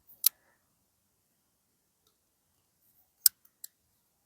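Sharp clicks of a ball-bearing folding knife's blade snapping open and shut: one near the start, then two more a little after three seconds in, the first of these the loudest.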